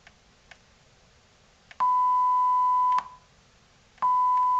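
Steady test tone from a signal generator, played through the amplifier's speaker. It sounds for about a second, cuts off, then comes back for a shorter moment near the end, each time at the same loudness, with soft clicks where it starts and stops. Two faint clicks come just before. The same loudness at different volume settings is the sign of the amplifier's fault, volume stuck at full, which is not yet fixed.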